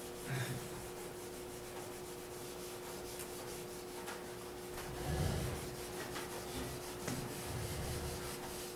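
A whiteboard being wiped clean with an eraser, soft rubbing strokes across the dry-erase surface, with a few dull low thuds. A steady faint hum runs underneath.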